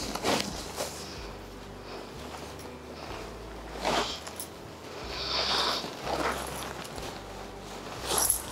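Cotton saree fabric rustling and swishing as it is handled, in a few short brushes, the longest about halfway through.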